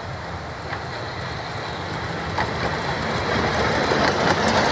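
Narrow-gauge steam locomotive hauling its carriages past, growing steadily louder as the train draws level.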